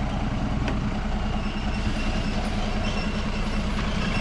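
Heavy goods truck's diesel engine idling steadily while the loaded truck stands still, a low, even drone.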